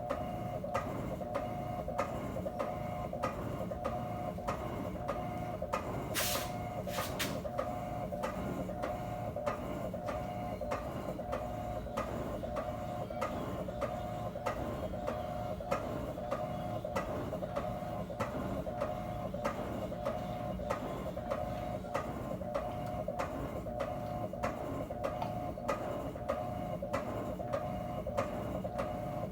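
12 kg Electrolux washing machine running: a steady motor hum with a regular clicking about two to three times a second, and a brief louder noise about six seconds in.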